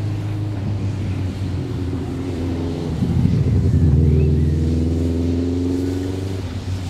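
A DR class 52 steam locomotive working as it pulls towards the listener, with a steady low rumble. Its exhaust beats and running gear swell to their loudest about three to four seconds in, then ease a little.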